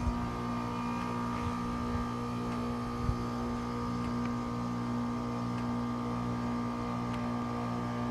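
2019 Goodman heat pump outdoor unit running through its defrost cycle with a steady hum, with a few faint knocks, the clearest about three seconds in.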